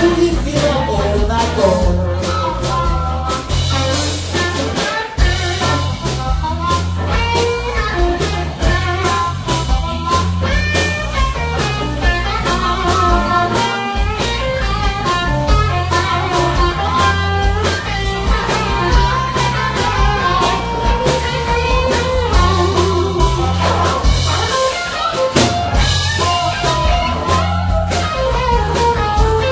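Live blues band playing an instrumental passage: electric guitar and drum kit, with amplified harmonica lines played into a hand-cupped microphone.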